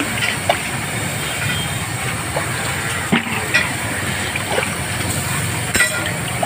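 Steady, noisy background ambience with scattered short clicks and clinks.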